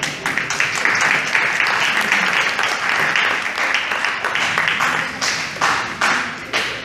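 Audience applauding, a dense patter of many hands clapping that thins to a few scattered claps near the end.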